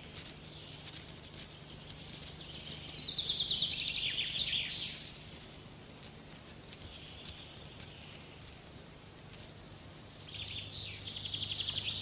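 A songbird sings a fast trill that falls in pitch and ends in a short flourish, about two seconds in and again near the end. Faint scattered clicks and a steady low hum lie under it.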